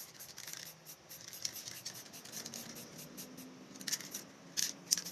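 Aerosol spray paint can hissing in short puffs as yellow paint is sprayed onto the board, the strongest few bursts coming near the end.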